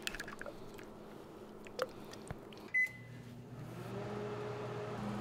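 A few light clicks, then a microwave oven's keypad beeps once, about three seconds in. The oven starts running with a steady low hum that grows a little louder.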